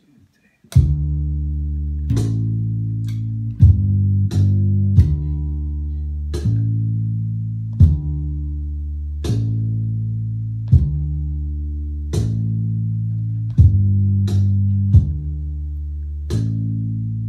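Bass guitar played solo: single plucked low notes that ring on, a new note roughly every second and a half with a few quicker ones in between. It starts about a second in, after near silence.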